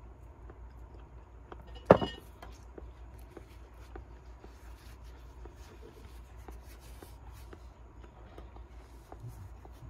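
Small eating and handling noises with chopsticks and a rice bowl: one sharp knock about two seconds in, then faint scattered clicks, over a low steady hum.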